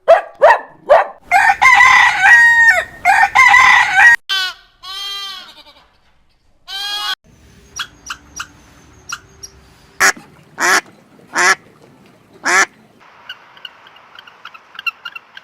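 A run of animal calls, one after another: a dog's last few barks, then loud waterfowl calls (geese honking and ducks quacking, four sharp calls near the middle), ending with faint, high bird chirps.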